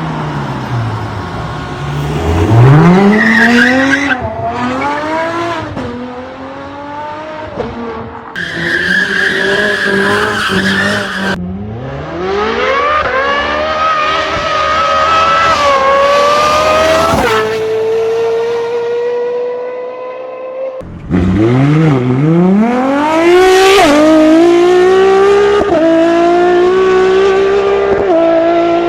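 Ferrari track car engines running at high revs, one clip after another: the engine note climbs, drops suddenly at each upshift and climbs again. The sound cuts abruptly to a different car several times.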